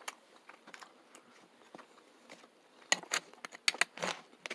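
Eating sounds from a meal of steak and potatoes: a scatter of short, sharp clicks and knocks of cutlery and chewing, sparse at first and coming thick and fast about three seconds in.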